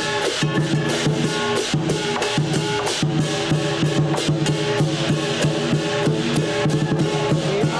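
Lion dance percussion band playing: a Chinese drum beating fast and steady under ringing gongs and clashing cymbals.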